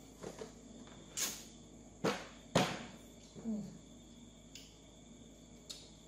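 Wet mouth sounds of eating an ice pop on a stick: a handful of short sucking and lip-smacking noises, the loudest about two and a half seconds in, and a brief low falling hum about three and a half seconds in.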